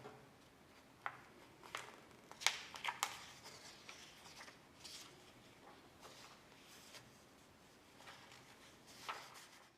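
Scattered light clicks and rustles, the loudest a cluster between about two and a half and three seconds in.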